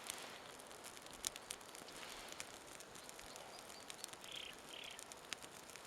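Faint scattered crackles from freshly lit birch-bark and dry-twig kindling just starting to burn. A small bird chirps twice, quickly, about four seconds in.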